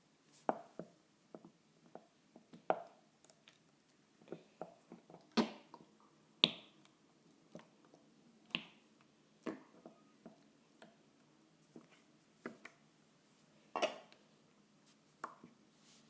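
Slime being squeezed and poked by hand, making irregular sharp clicks and short wet pops, one or two a second.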